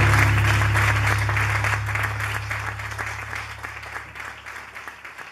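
Audience applauding at the end of a live song, with a low sustained note from the band ringing underneath; the whole sound fades out steadily.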